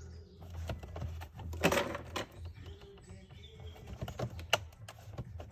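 Irregular small plastic clicks and rattles of hands working wiring connectors loose behind a van's steering column, with a short louder rustle or scrape about two seconds in, over a steady low hum.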